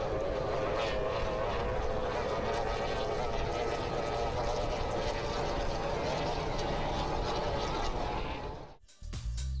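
F2 tunnel-hull race boat's outboard engine running at high revs at racing speed: a steady high whine, wavering a little in pitch over the rush of water and spray. It cuts off shortly before the end, and music begins.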